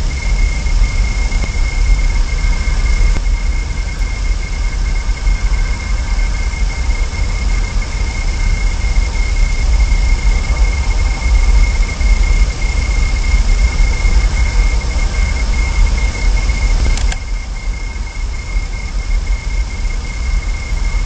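Steady noise from the nest camera's audio feed: a fluctuating low rumble and hiss with a constant high-pitched whine. There is a short click about 17 seconds in, after which the rumble eases a little.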